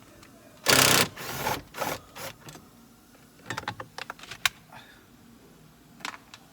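Plastic dashboard air duct being pulled out by hand: a loud scrape about a second in, then a scatter of sharp clicks and knocks from the duct and its clips.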